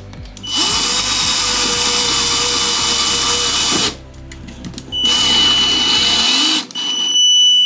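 Power drill driving a self-drilling plastic drywall anchor into sheetrock, run in three bursts: one of about three seconds, then two shorter ones with a steady high whine.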